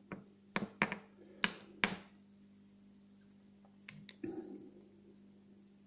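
Sharp little clicks and taps of a paper-tape-wrapped bobbin being pressed into a bent-wire bobbin holder by hand: about five in the first two seconds, then a couple more and a short rustle about four seconds in.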